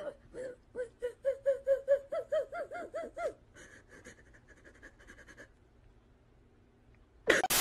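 A girl sobbing in quick, gasping, rhythmic breaths, about five a second, rising in pitch for about three seconds and then trailing off. A short loud burst of noise near the end.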